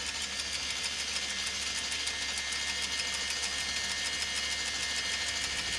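Electric anchor windlass running steadily, with a low hum and a fast, even rhythm as the anchor chain passes over the bow roller.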